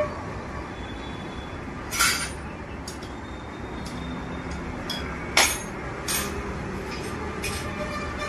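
Scattered sharp metallic clinks and taps from tools and engine parts being handled during scooter engine assembly, about half a dozen in all. The loudest come about two seconds in and about five and a half seconds in, over a steady background hum.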